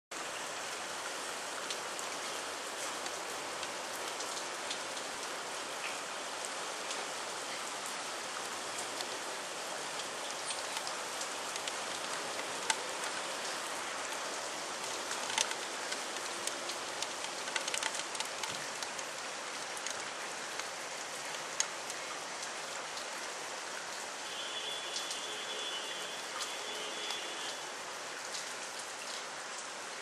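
Steady rain falling, an even hiss with scattered louder drops striking. Near the end a thin high-pitched tone sounds for about three seconds.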